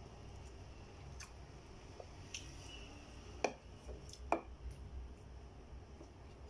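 A person eating rice and crispy pork with the fingers from a plate: quiet chewing and small handling sounds, with two sharp clicks a little past halfway, over a low steady hum.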